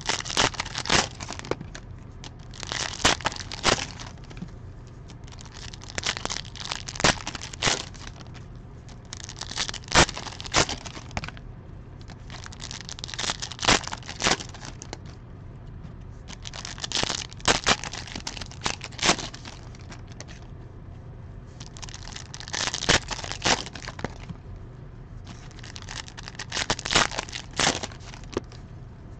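Plastic wrapping of trading card packs being crinkled and torn open by hand, in crackling bursts every three or four seconds.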